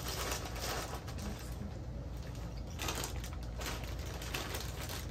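Irregular crinkling and crackling of a potato chip bag being handled, with chips crunching; the clicks come thickest about three seconds in.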